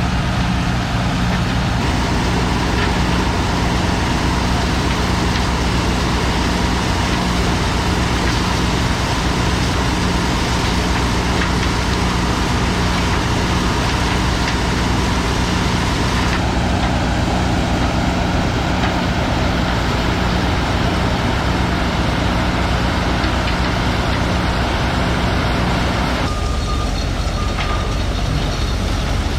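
Heavy farm machinery running steadily during corn shelling: engine drone and the running noise of a corn sheller. The sound shifts abruptly twice, about 16 and 26 seconds in.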